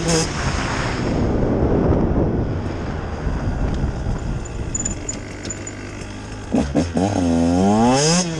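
2018 Husqvarna TE 150 two-stroke single-cylinder engine mostly off the throttle under a loud rushing noise, then, about six and a half seconds in, two quick throttle blips followed by a sharp rev climbing in pitch as the bike accelerates.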